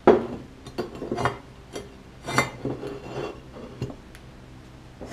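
A series of light clinks and knocks of hard objects being handled, some with a short ring; the loudest comes at the very start and another about two and a half seconds in.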